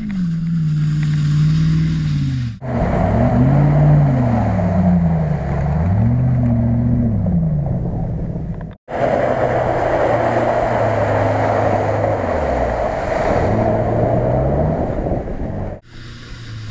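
Off-road 4x4 SUV engine revving up and down repeatedly as it drives its wheels through deep mud, over a loud rushing noise of spinning tyres and mud spray. The sound breaks off abruptly a few times.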